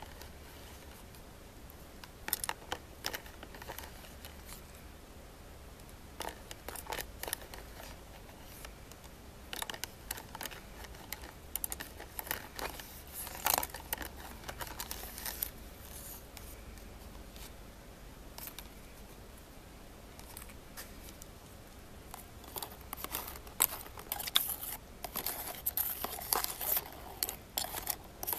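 A plastic spoon scraping and clicking against the walls of a plastic food tub while a small copper ring is stirred about in a liquid bath. The clicks come in scattered bunches and grow busier near the end.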